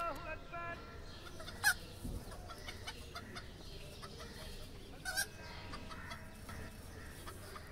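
A chicken clucking: two short calls, about two seconds and five seconds in, over a faint steady background.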